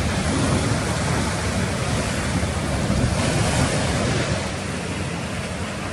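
Ocean surf washing in steadily, with typhoon wind buffeting the microphone.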